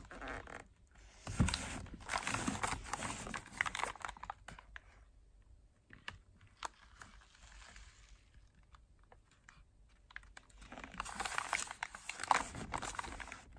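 Aluminium foil and paper wrapping of a fireworks cake crinkling as it is handled and pressed, in two spells: one starting about a second in and lasting a few seconds, and another near the end.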